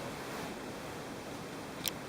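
Steady background hiss, with one short, sharp click near the end.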